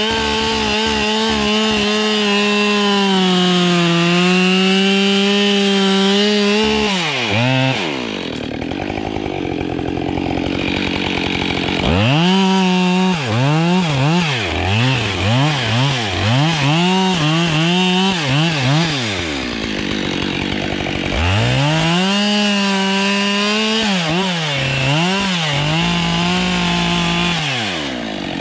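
Husqvarna 572 XP two-stroke chainsaw at full throttle cutting spruce wood, dropping back to idle twice between runs. In some stretches the revs are let off and picked up again in quick repeated bursts.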